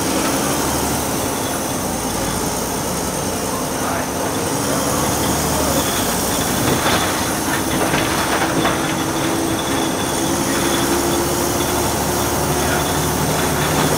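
Interior of a Volvo B6BLE single-deck bus on the move: the diesel engine running under way with road noise, and scattered rattles and knocks from the bodywork and fittings around the middle.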